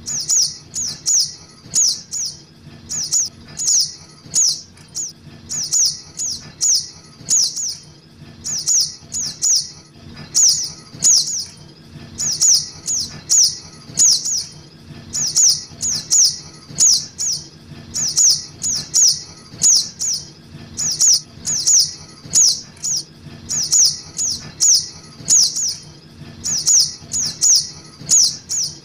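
Juvenile sogok ontong (spiderhunter) calls played as a bird lure: sharp, high chirps, each falling in pitch, in quick clusters of two to four that repeat steadily.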